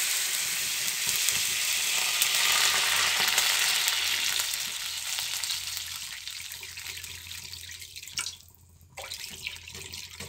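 Water poured in a stream into a hot frying pan: a loud sizzling hiss at first as it hits the hot pan, settling into the quieter splash of pouring as the pan fills, with a brief break in the pour near the end.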